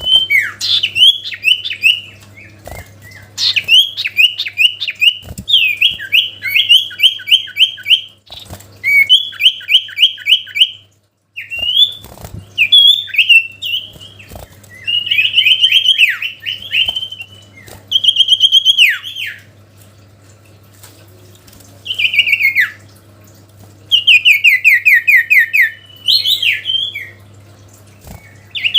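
Sirtu songbird in full song: loud bursts of rapid repeated chips and down-sweeping whistled notes, separated by short pauses. This is a challenge song, used to call in a rival bird.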